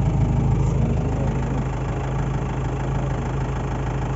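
Engine of a forest safari vehicle running steadily with a deep, even hum.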